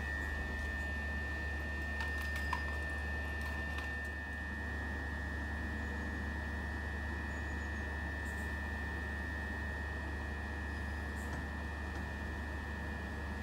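Class 375 Electrostar electric multiple unit standing at the platform: a steady high-pitched whine held on one note over a low hum, with a few faint clicks about two to four seconds in.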